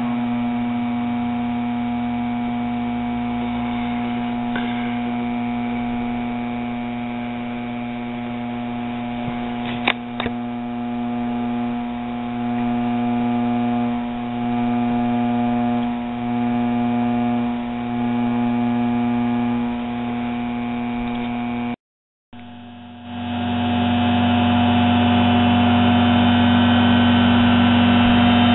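Electric lathe motor running with its newly turned aluminium pulley, a steady electrical hum with a fixed pitch. There is a sharp click about ten seconds in, and the loudness dips and swells about every two seconds for a while. After a brief dropout near the end, the hum comes back louder.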